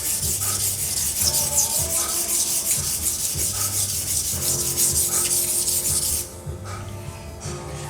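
Paring knife steel being ground on an abrasive, a steady rapid scratchy rasping that stops about six seconds in. Background music with a steady beat plays underneath.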